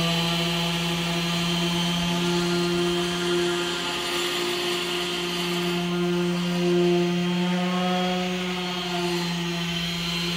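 Random orbital sander running steadily with an even hum as it sands a metal tank with fine 3,000-grit paper.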